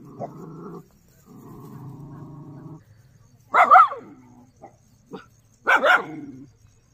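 Dog barking twice, loud and about two seconds apart, after a quieter low, steady sound that comes and goes.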